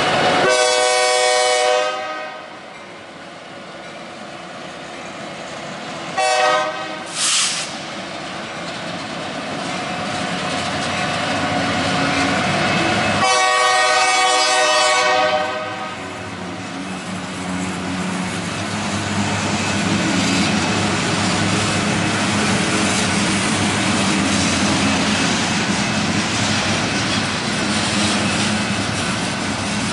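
Freight train passing close by: the lead diesel locomotives sound their multi-note air horn in a long blast, a short blast about six seconds in, and another long blast about halfway through. After that the freight cars roll past with a steady rumble and clickety-clack of the wheels on the rail joints.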